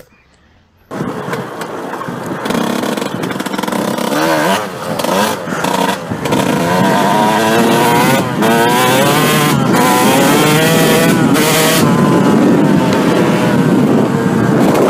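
Dirt bike engine being ridden hard, starting abruptly about a second in. Its pitch rises and falls repeatedly with the throttle and gear changes, with brief drops where the throttle is let off.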